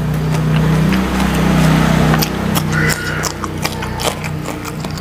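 Close-miked chewing and wet mouth smacks of a person eating rice and fried fish by hand, with quick clicking smacks throughout. A low closed-mouth hum runs under the chewing for about the first two seconds.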